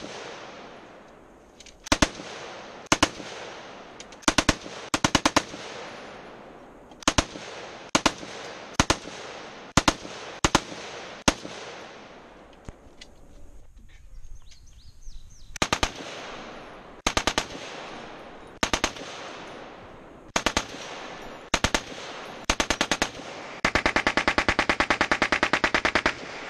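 Fully automatic machine-gun fire in short bursts of a few rounds each, about a second apart, every shot echoing. There is a pause of about two seconds midway, then one continuous burst of nearly three seconds near the end.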